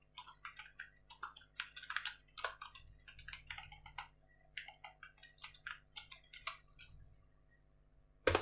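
Typing on a computer keyboard: quick, irregular keystrokes for about six seconds, then a pause. Near the end comes a single sharp, loud click.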